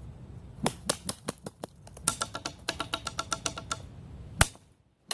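Wooden drumstick tapped against a hard object: a few spaced taps, then a quick even run of ringing taps, and one loud hit near the end.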